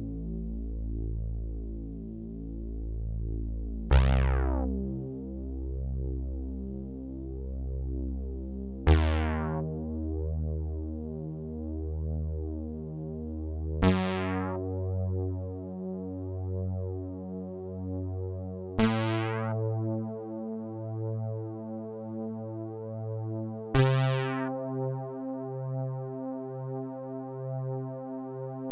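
Yamaha TX81Z FM synthesizer bass notes, each struck with a bright, fading attack and held about five seconds, with a new note about every five seconds, each a step higher than the last.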